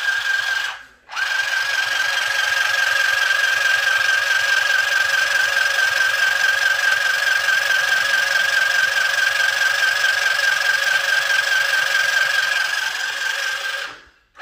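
Small electric mini sewing machine running at a steady speed with a high-pitched motor whine as fabric is stitched. It stops briefly about a second in, then runs evenly and stops near the end.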